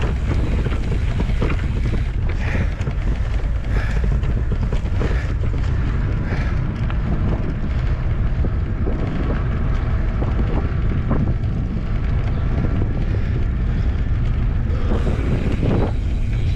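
Wind buffeting the microphone of a handlebar camera on a mountain bike riding a dirt track, with the knobby tyre on dirt and scattered knocks and rattles from the bike over bumps.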